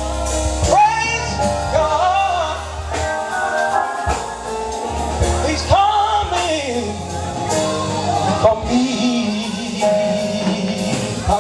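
Live gospel music: a man sings long, wordless melismatic runs and held notes into a microphone over a church band with keyboard and drums.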